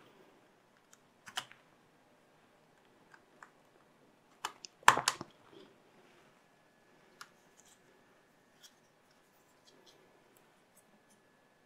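Light clicks and taps of a tablet battery and the plastic chassis being handled as the battery is set in and pressed into place, with a louder cluster of clicks about five seconds in.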